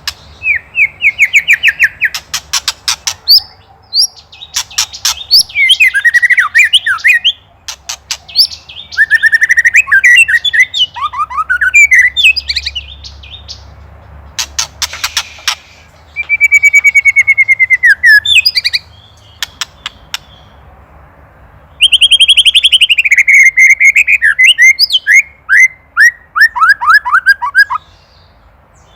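White-rumped shama giving its agitated 'ketrek' alarm rattle against a predator: bouts of fast dry rattling clicks mixed with trills and descending runs of whistled notes, with short pauses between bouts.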